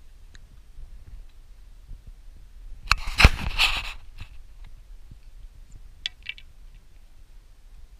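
Handling noise on a handheld camera's microphone: a brief rustle and knock about three seconds in as the camera is moved and turned, over a low rumble, with a few faint clicks later.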